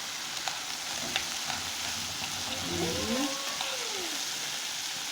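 Chopped onion, pepper and garlic seasoning sizzling steadily in hot oil in a pan as it is stirred, with a few light utensil clicks.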